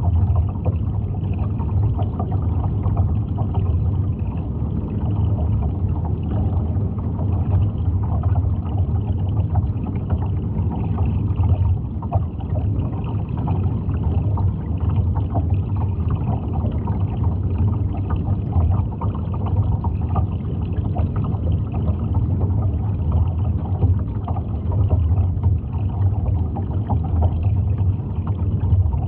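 Steady underwater noise: a low, even hum with a fine, continuous crackle of moving water.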